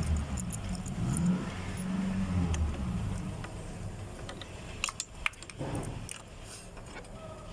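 Metal tools and a spark plug clinking, with a cluster of sharp clicks about five seconds in, over a low rumble in the first few seconds.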